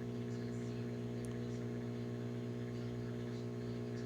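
Microwave oven running on high power with a steady low electrical hum.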